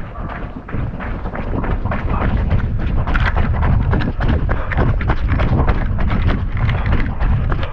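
A person moving fast on foot through scrub: rapid scuffs, thumps of footfalls and brush crashing, over a heavy rumble of the microphone being jostled and buffeted. It grows louder about a second in.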